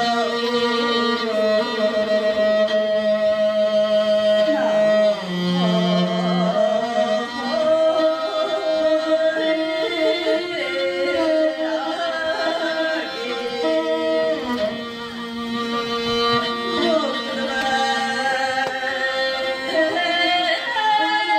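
Live music: singing with instrumental accompaniment, in long held notes with slides between them.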